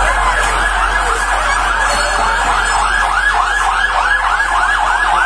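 Fire engine siren sounding in a fast yelp, its pitch sweeping up and down about three times a second.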